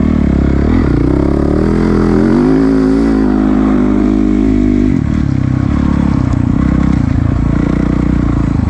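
Dirt bike engine running hard on the throttle, its pitch climbing over the first two seconds and holding. About five seconds in the note drops lower and carries on steadily.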